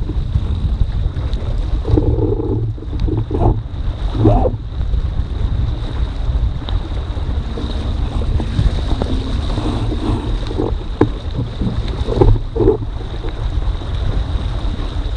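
Wind buffeting the microphone over water rushing and slapping along a foiling dinghy's hull as it sails slowly, still in the water rather than up on its foils. A few louder splashes come about two to four seconds in and again near the end, and a faint steady high whine sits under it all.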